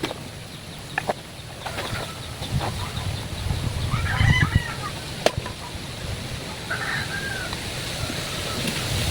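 A chicken clucking: two short calls, about four and seven seconds in, over a low rumble, with a couple of light knocks.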